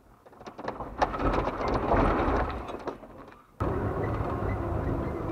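Tyres rolling backwards over loose gravel: a rough crunching hiss with small stone clicks that fades out. About three and a half seconds in, a sudden cut to the Ranchero pickup's engine running steadily, heard from inside the cab on a paved street.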